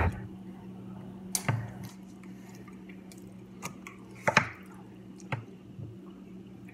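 Quiet eating sounds close to the microphone: a scattered handful of small wet clicks and taps from mouth and plastic fork, the loudest a little past four seconds in, over a steady low hum.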